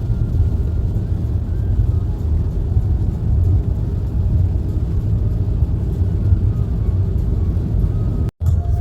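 Steady low rumble of a car driving in heavy rain, with the hiss of the rain laid over it. The sound cuts out completely for a moment near the end.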